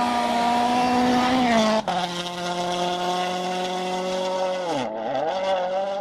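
Racing car engine held at high, steady revs. About two seconds in there is a brief break and the note steps down in pitch, an upshift. Near five seconds the pitch dips quickly and comes back up.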